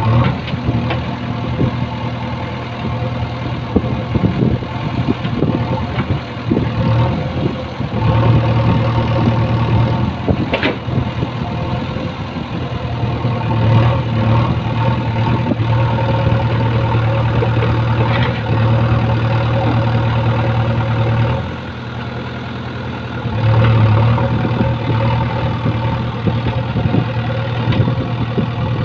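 JCB 3DX backhoe loader's diesel engine running, its note swelling louder several times as the hydraulics work the digging arm under load. Clanks and knocks of the bucket against soil and stones in the first several seconds.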